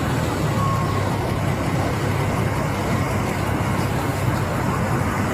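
Steady low rumble of an idling vehicle engine, heard through a body-worn camera microphone.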